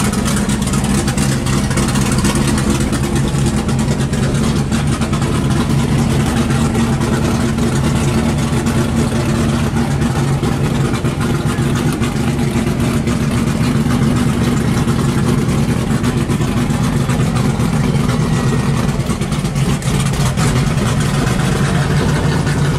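Engine of a drag-prepared early Chevrolet Corvette idling, loud and steady, with no revving.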